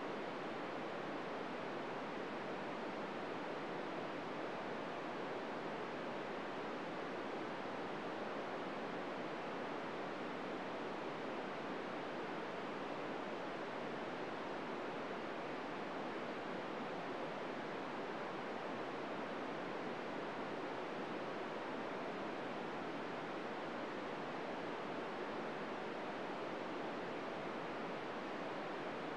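Steady hiss of an FM radio receiver on 145.800 MHz with the squelch open and no signal: plain static, with no SSTV tones coming through.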